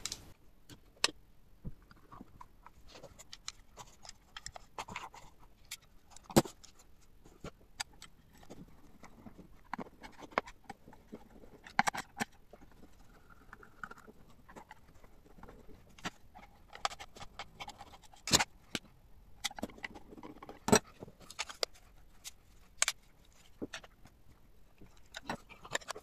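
Irregular clicks and knocks of a handheld cordless vacuum's plastic housing being handled and fitted back together; the motor is not running.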